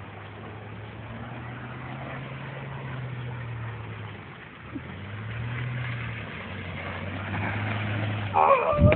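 2008 Ford Ranger pickup's engine running, its note swelling, easing off briefly about halfway, then building again. Near the end comes a short wavering higher sound and a sharp thump.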